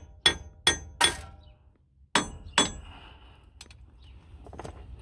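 Hammer striking the end of a screwdriver wedged behind a rusted wheel hub: five sharp, ringing metal strikes, three in quick succession, then two more about two seconds in. The blows are driving the seized hub off a little at a time.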